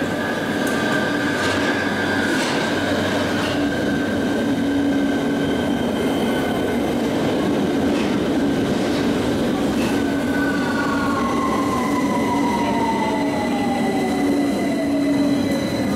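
London Underground tube train arriving at a platform and braking: a steady rumble and hum of wheels on rail, with clicks over the rail joints, then a whine that falls steadily in pitch from about ten seconds in as the train slows.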